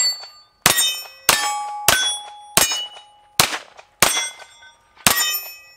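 Walther Q5 Match 9mm pistol fired about seven times in steady succession, roughly one shot every half second to second, each shot followed by the ring of steel plate targets being hit.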